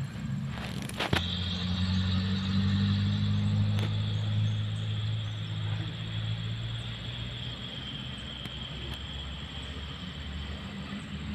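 A motor vehicle passing, its low engine rumble coming in suddenly about a second in, loudest for a few seconds, then slowly fading. A faint high whine runs over the rumble, sinking slightly in pitch.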